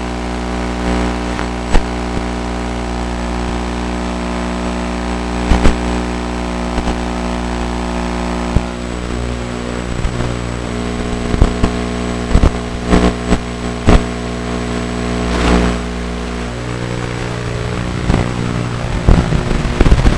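Small engine of a radio-controlled model car idling steadily, its pitch shifting slightly about halfway through. Sharp knocks and taps cut in now and then as the car is handled.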